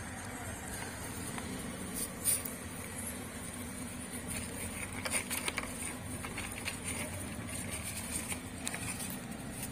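Light rustling and a few short crackles of dry wheat straw and newspaper bedding as hamsters move through it and a hand reaches in, over a steady low hum.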